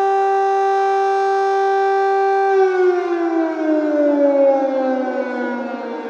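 Civil defence air raid siren sounding across the city, holding one steady high tone, then about two and a half seconds in starting a slow downward slide in pitch.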